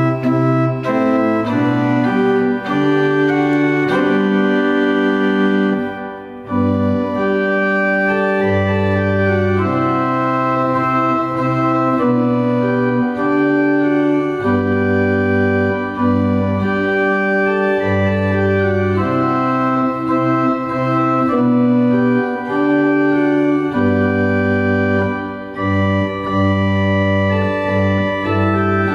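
Pipe organ playing a hymn in sustained full chords over a moving bass line, with a short break between phrases about six seconds in.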